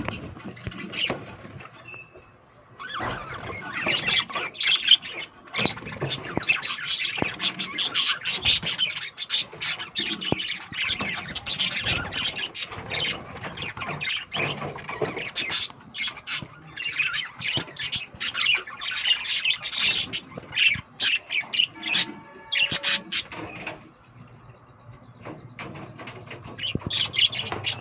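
A breeding colony of small parrots chirping and squawking over one another in a dense, continuous chatter, with short lulls about two seconds in and again near the end.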